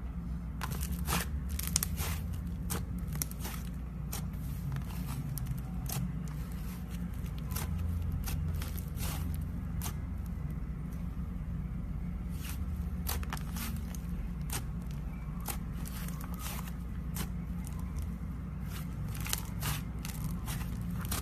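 Slime being squeezed and worked by hand, giving irregular crackling and popping clicks over a steady low hum.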